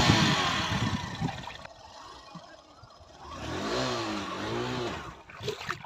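Motorcycle engine, opening with a loud rushing noise that fades over the first second or so, then revving up and down twice near the middle.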